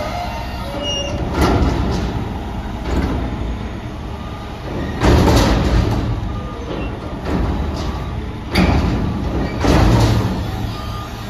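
Freightliner Pak-Mor side-loader garbage truck dumping a commercial dumpster into its hopper: the engine runs steadily while several loud crashes ring out as the lifted container is banged and shaken and trash falls out of it.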